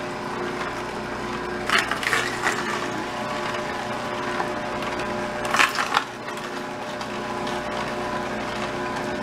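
Electric slow masticating juicer running with a steady motor hum, its auger grinding pieces of carrot and fruit. Two louder stretches of crunching come about two seconds in and again about five and a half seconds in.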